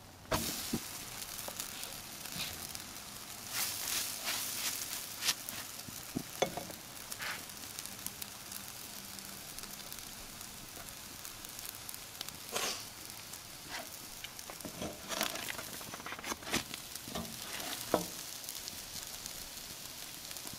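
Naan dough sizzling on the grate of a charcoal grill over hot coals: a steady hiss with scattered pops and crackles.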